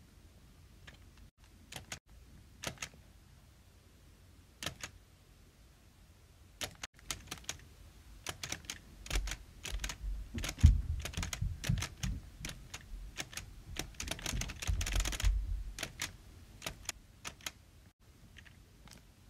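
A series of sharp clicks made close to the microphone. They are scattered at first, crowd into a fast, busy flurry with some low thumps in the middle, then thin out again near the end.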